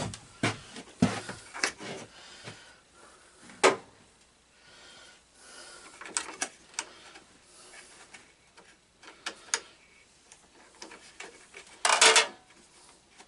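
Scattered metallic clinks and knocks of tools and parts being handled, with a louder rattling clatter near the end.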